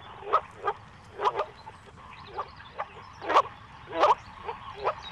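Moor frog chorus played back from a phone recording through its small speaker: short hollow "bop" calls of the males, two to three a second at uneven spacing.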